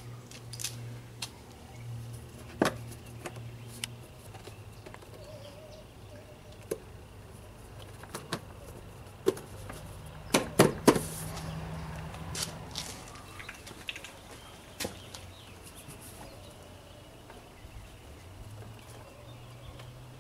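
Scattered light clicks and knocks from hands handling parts of an outboard motor, over a low steady hum. The loudest is a quick cluster of sharp knocks about halfway through.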